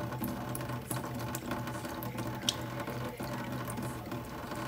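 Thin stream of tap water running from a kitchen faucet into a stainless-steel sink, with small, quick clicks of a cat lapping at the stream. A steady low hum runs underneath.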